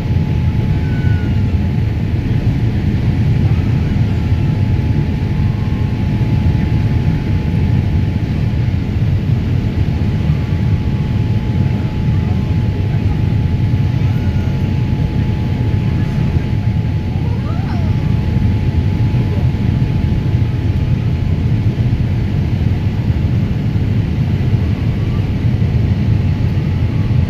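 Steady cabin noise inside a Boeing 787 Dreamliner on its approach to land: a low, even rush of engines and airflow, with a faint steady high tone above it.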